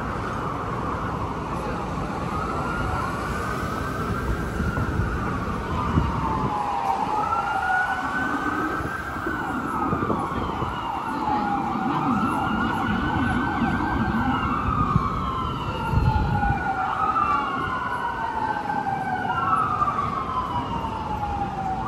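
Emergency vehicle sirens wailing, rising and falling in pitch over and over, with more than one wail overlapping out of step, over a low city traffic rumble.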